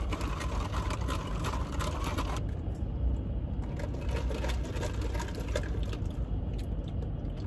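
Steady low hum inside a car cabin, with light scrapes and rattles of ice in plastic cups as straws are stirred and sipped.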